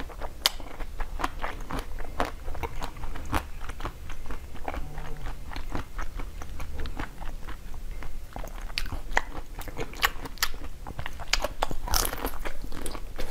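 Close-up bites and chewing of a frozen blue ice cream bar: many sharp, crisp crunches and crackles as the frozen bar breaks between the teeth.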